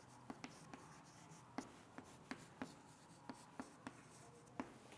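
Chalk writing on a chalkboard: faint, irregular sharp taps and short strokes as each letter is written.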